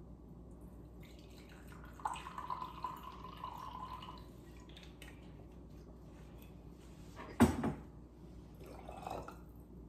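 Vinegar pouring from a bottle into a glass measuring cup: a thin trickle, with a steady ringing note for about two seconds as the cup fills. One sharp knock comes about seven seconds in.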